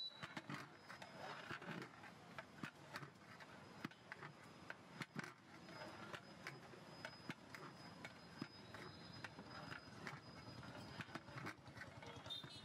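Faint, irregular clicks and knocks from a long metal rod working in a large aluminium cooking pot of liquid.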